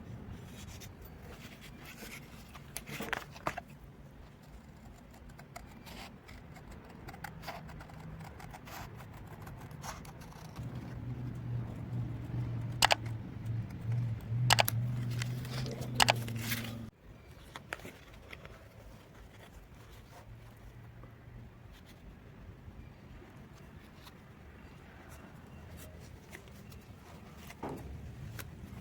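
Scattered light scrapes and sharp clicks of metal being handled and marked at a workbench, over a low steady hum. The hum grows louder for several seconds midway and stops abruptly about seventeen seconds in.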